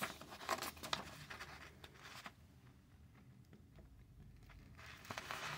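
Pen writing on a sheet of paper, with the paper shifting under the hand: faint scratching strokes and small taps, mostly in the first couple of seconds, then quieter.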